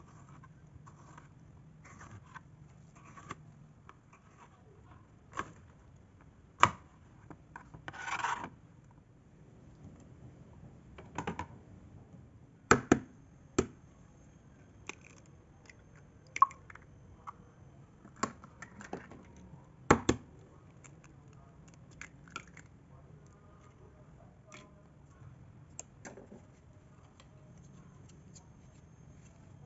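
Kitchen preparation sounds: light knife taps on a plastic cutting board as a tomato is sliced, then scattered sharp knocks and clicks, among them eggs being cracked into a glass bowl.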